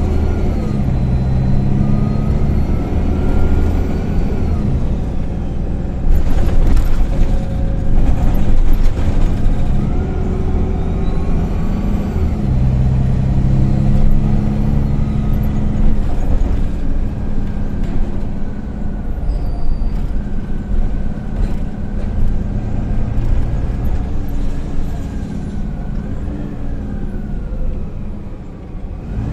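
MAN Lion's City A20 NL city bus under way, heard from inside the passenger cabin: the engine's low drone swells and eases as it pulls and changes gear, while a thin drivetrain whine rises and falls in pitch. About six seconds in, a few seconds of rattling and knocking from the bus body.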